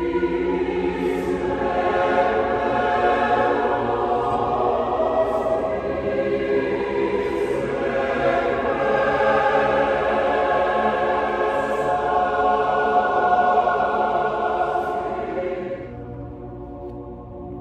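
A large choir singing a cappella in a big, echoing church, with many voices sustaining full chords. About sixteen seconds in the sound drops to a much quieter held tone.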